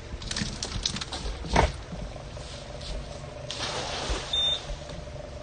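Cast net thrown from a boat: a few light rattles and a brief swish, then the spread net lands on the water in a spray of splashes about three and a half seconds in.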